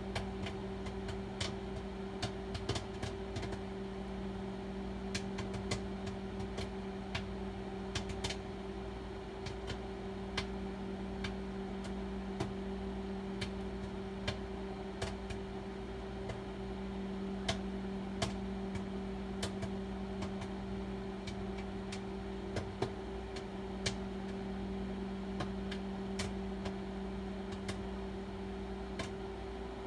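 Microwave oven humming steadily while popcorn kernels pop inside the bag, sharp pops coming irregularly, roughly one or two a second.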